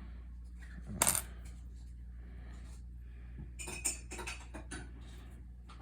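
Copper-plated pennies clinking as they are handled and sorted by hand: one sharp clink about a second in, then a run of small clicks of coins against each other near the middle and end.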